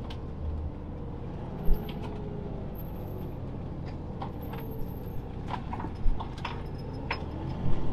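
Motorhome engine and tyre noise heard from inside the cab as it drives slowly, a steady low rumble. A sharp knock about two seconds in and a few light rattles and clicks later.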